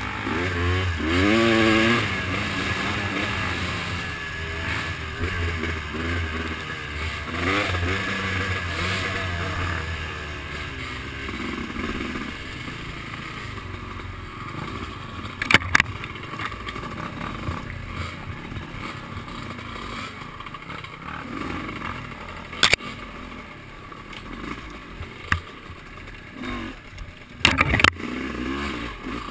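Off-road trail vehicle engine running and revving, rising in pitch twice in the first half, then dropping away. Several sharp knocks and clatters come in the second half.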